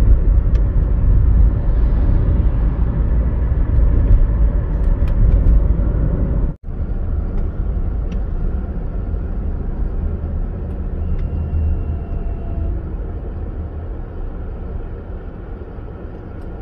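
Road and engine noise heard from inside a moving car's cabin: a steady low rumble that drops out for an instant about six and a half seconds in, then runs on more quietly and fades gradually as the car slows down.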